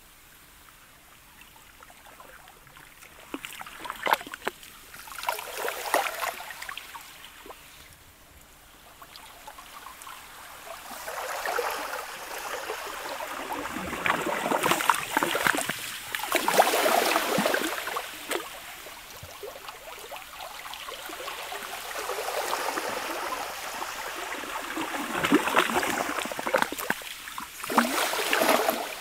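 Sludge and pancake sea ice lapping against a shore: slushy washes swell in and drain back every few seconds with a trickling, gurgling sound. The washes are faint at first and loudest in the middle and near the end.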